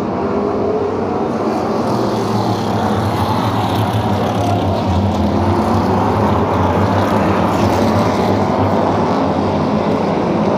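A pack of stock cars running together around the short track, their engines a loud, steady roar of many overlapping engine notes.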